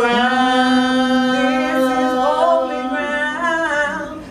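Women singing a cappella, holding one long note. A second voice bends up and down in a wavering run over it from about halfway through, and the note fades near the end.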